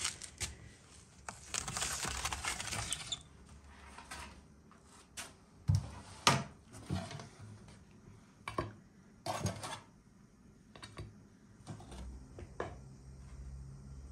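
Metal spatula scraping and knocking against a metal baking tray while lifting baked pastries off it: a string of separate clinks and knocks, with a longer scrape about two seconds in.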